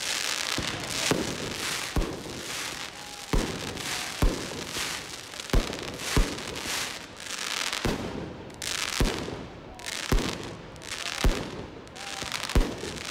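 Aerial fireworks bursting: about a dozen sharp bangs at uneven intervals, with a hiss between them.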